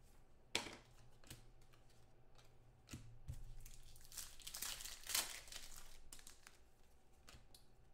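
Trading cards and pack wrapper being handled: faint rustling and crinkling as the cards are shuffled, with a sharper rustle about half a second in and another a little past the middle.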